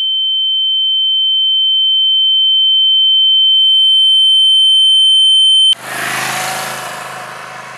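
A film's ear-ringing sound effect: one high, steady tone that slowly swells, the dazed ringing in the ears after being struck. It cuts off abruptly about six seconds in, giving way to a rushing noise that fades away.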